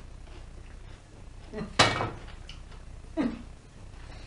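Metal cookware clanking on a gas stove as a frying pan and a baking tray are moved about: one sharp ringing clank a little before two seconds in and a softer knock a little after three seconds.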